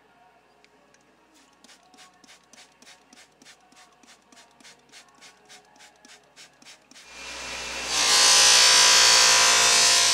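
A trigger spray bottle squirted over and over, about four quick sprays a second. From about seven seconds in, a Baldor bench buffer's electric motor spins up and runs loud, with a steady hum under a hiss.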